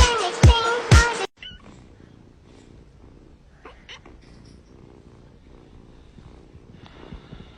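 A children's song with a steady beat cuts off about a second in, then a cat purring quietly.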